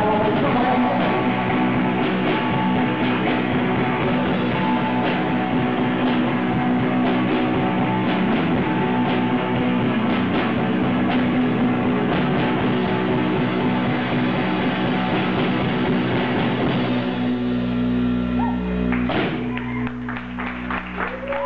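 Live rock band playing loudly with electric guitar and drum kit. About seventeen seconds in the drums drop out and held chords ring on, with one last loud hit a couple of seconds later.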